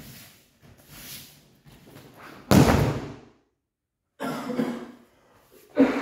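A judo throw landing: a loud slap and thud about two and a half seconds in as the thrown judoka hits the tatami mats in a breakfall. Softer rustles and scuffs of judo jackets and bare feet on the mats come before it and again near the end as he gets up.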